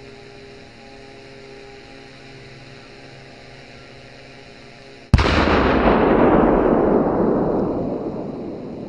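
A steady low hum, then about five seconds in a single very loud blast from a powerful firecracker. Its rumble rolls on and slowly dies away.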